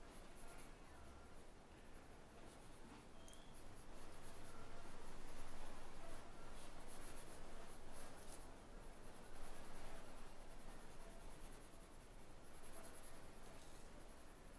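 Pencil shading on paper: quick back-and-forth scratching strokes, louder through the middle.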